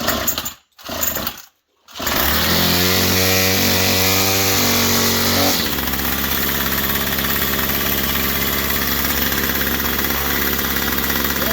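Gas string trimmer engine pull-started on choke: two quick yanks of the recoil starter cord, then the engine catches about two seconds in and runs fast. About halfway through it drops to a lower steady speed and keeps running.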